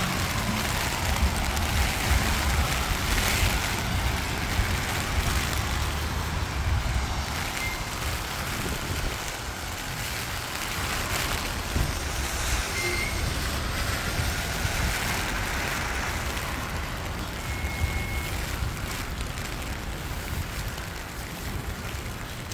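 City traffic on rain-soaked streets: a steady hiss of wet road noise under a low rumble of engines, with vehicles swishing past on the wet pavement every few seconds. Three brief high squeaks stand out, about 8, 13 and 18 seconds in.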